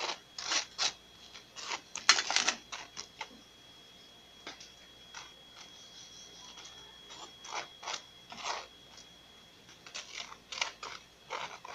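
Short clicks, taps and scrapes of kitchen handling: a pop-up toaster being worked in the first few seconds, then a spatula against a plate as toast is lifted onto it near the end.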